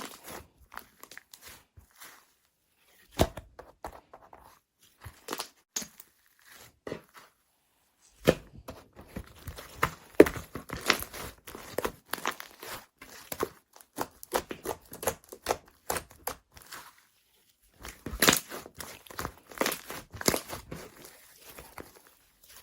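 Slime being squished and poked by hand, making irregular crackling, crinkling and popping sounds in bursts with short pauses.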